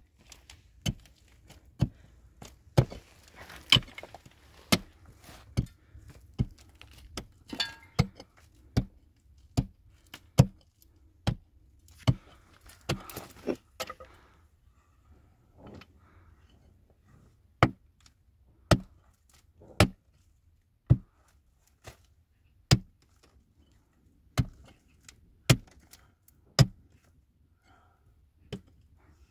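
A hand tool striking repeatedly with sharp blows, about one a second, pausing briefly about halfway through, with rustling and scraping between some of the blows.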